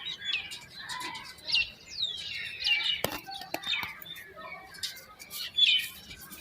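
Birds chirping: many short, high chirps and a few whistled glides, with a sharp click about three seconds in.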